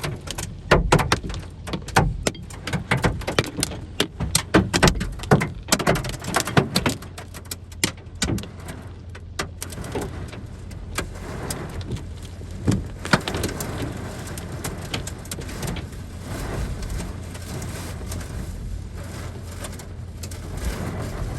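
Hailstones pelting a car's roof and windscreen, heard from inside the car: a dense clatter of sharp hits for the first half that thins to scattered hits over a steady rain-like hiss.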